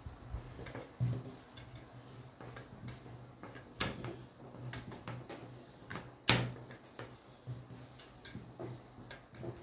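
Long thin wooden rolling pin (oklava) rolling out stiff dough on a glass-topped table, with scattered light knocks and clacks of the pin against the table; the loudest knock comes about six seconds in.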